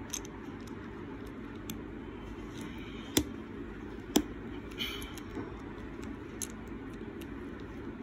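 Plastic pieces of a 3x3 Rubik's cube clicking as an edge piece is worked and pressed into place on the partly assembled cube. Two sharper snaps come about three and four seconds in, with a few lighter clicks around them, over a steady low background noise.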